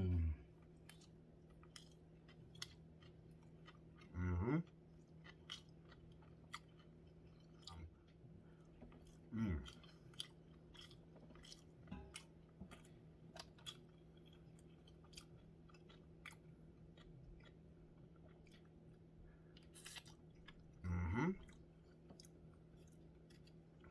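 A person chewing sushi close to the microphone, with many small wet mouth clicks and smacks. Three short vocal sounds break in, spaced several seconds apart.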